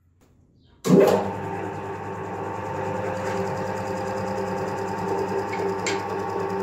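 Wood lathe switched on about a second in: its electric motor starts with a jolt, then runs with a steady hum as it spins a whole pineapple mounted between centres. A brief tick comes near the end.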